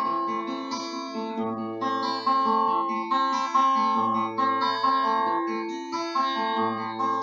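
Instrumental song intro on plucked guitar, picking a repeating chord pattern of ringing notes, with a low bass note coming in about every two and a half seconds.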